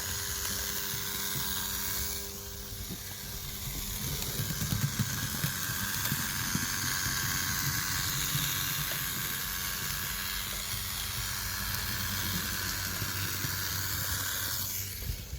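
Fleischmann BR 51 model steam locomotive running on the track, its tender-mounted motor giving a steady high-pitched whirring hiss over a low rumble; the sound dips briefly about two seconds in. The noise comes from the motor in the tender and is guessed to want sewing-machine oil on the motor's drive shaft.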